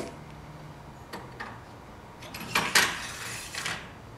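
Metal hardware being handled: a few light clicks, then a short sliding, scraping clatter a little past the middle and another near the end.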